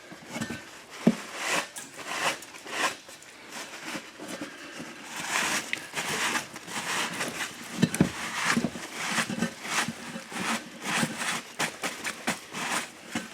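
Irregular scraping, rubbing and knocking as rust and old tire sealant are cleaned out of the inside of a lawnmower's steel wheel rim, rusted through by green slime sealant.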